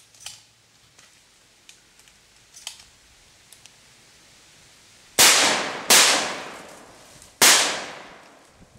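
Three shots from a Benelli Super 90 semi-automatic 12-gauge shotgun, the first two quick in succession and the third about a second and a half later, each trailing off in a long echo.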